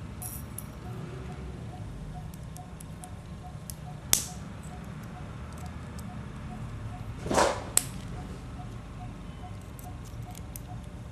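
Metal hand tools clicking and scraping on an OS 46AXII model two-stroke engine as the screws of its rear cover are worked loose. Faint small clicks throughout, with a sharp click about four seconds in and a short scrape then another sharp click about three seconds later.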